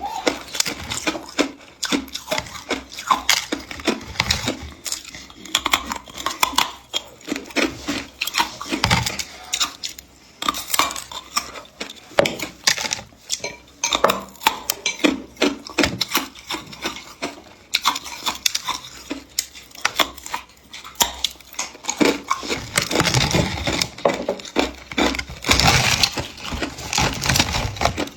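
Hard clear ice being bitten and chewed close to the microphone: a rapid, uneven run of sharp cracks and crunches, fuller and louder in the last few seconds.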